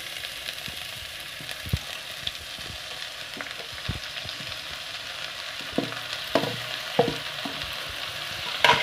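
Chopped amaranth greens hitting hot oil in a pan and sizzling steadily, with a wooden spatula knocking and scraping against the steel bowl and pan several times as the greens are pushed in.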